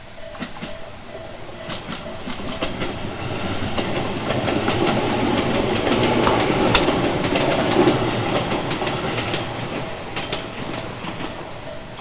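Tobu Tojo Line train passing over a level crossing, its wheels clattering over the rail joints. The noise builds to its loudest in the middle and then fades. Through it the crossing's electronic bell (the Tobu "sound A" type) rings steadily, heard clearly at the start and again near the end.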